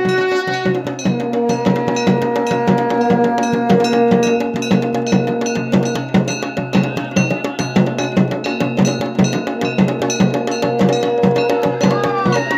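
Music: a fast, steady drum beat under long held melodic notes that change pitch every second or two, with light high ticks on the beat.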